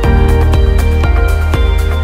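Background music with a steady beat and sustained pitched notes.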